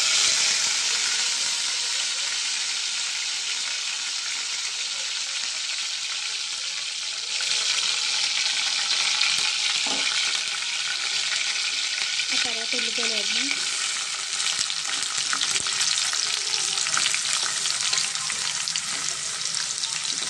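Curry leaves and green chillies sizzling in hot oil in a kadai, a steady crackling hiss that grows louder about seven seconds in.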